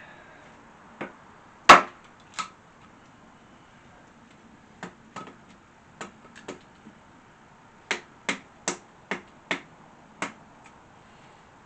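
Sharp chopping strikes on small pieces of fatwood, about a dozen separate blows, the loudest about two seconds in, with a quick even run of five near the end.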